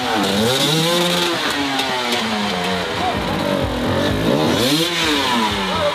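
Hard-enduro dirt bike engines revving as riders push through a muddy water pit. The pitch swells up and falls back twice.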